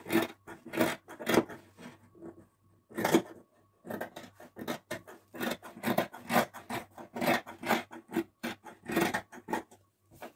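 Dressmaking shears cutting through organza fabric: a run of short snips, a few a second, with a brief pause about two seconds in.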